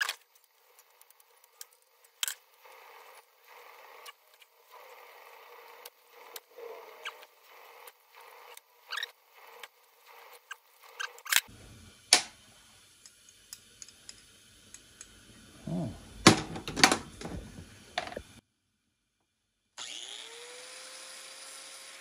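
Metal clicks, clinks and a few sharp knocks as a sewing machine's metal parts are worked loose and tools are handled, loudest about 16 seconds in. Near the end an angle grinder starts with a rising whine and settles to a steady spin.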